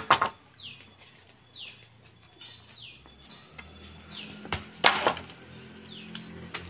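A bird repeating a short, falling whistled note about once a second. Two sharp knocks, one at the very start and one about five seconds in, are the loudest sounds.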